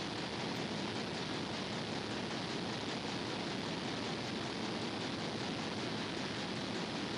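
A steady, even hiss with no distinct knocks, tool sounds or changes.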